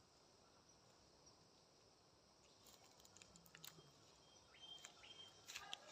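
Near silence: faint outdoor background, with a few soft clicks and rustles in the second half that grow a little louder near the end.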